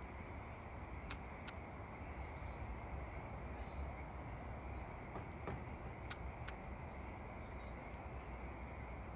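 Steady low background hiss and rumble, with four short sharp ticks in two pairs, one pair about a second in and another about six seconds in.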